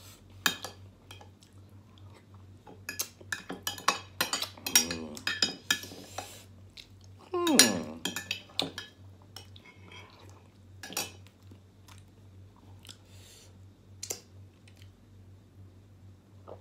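A metal spoon and fork clink and scrape against a foil tray and a glass dish while someone eats and chews, with a cluster of quick clinks in the first half. About seven and a half seconds in there is a short voiced sound from the eater, falling in pitch.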